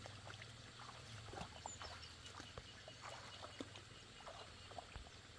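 Quiet rural ambience: faint, irregular rustles and soft ticks over a faint steady high tone, with no clear single source.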